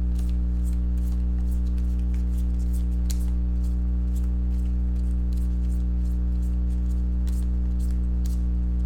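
Football trading cards being flipped through by hand, card edges flicking and sliding in faint, irregular ticks, over a steady low hum.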